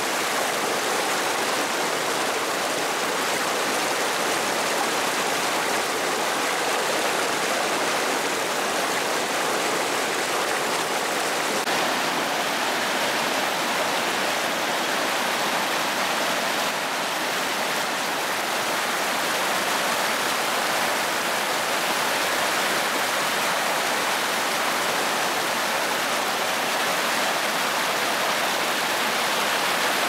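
Fast stream rushing over rocks and small cascades in whitewater rapids, a steady, unbroken rush of water.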